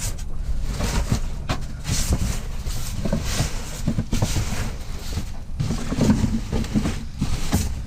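Irregular clattering and rustling of scrap being handled and rummaged through in a trash pile.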